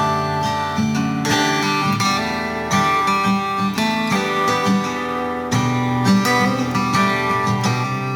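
Country-folk acoustic guitar music, plucked and strummed, played through a loudspeaker driven by a TDA7293 class A/B amplifier.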